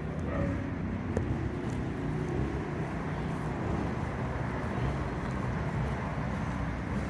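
Steady low rumble of outdoor background noise, with a faint click about a second in.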